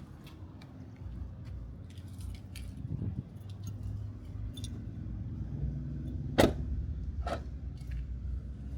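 Light rattling and clicking over a low steady rumble, with a sharp knock about two-thirds of the way through and a smaller one a second later.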